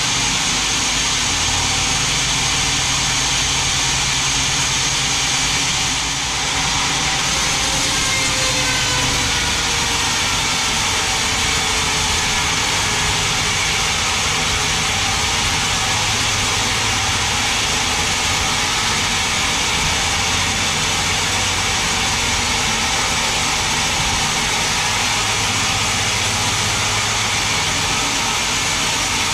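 Large vertical band sawmill running steadily as it rips a huge mahogany log lengthwise into boards: a continuous loud machine noise, with a slight dip about six seconds in.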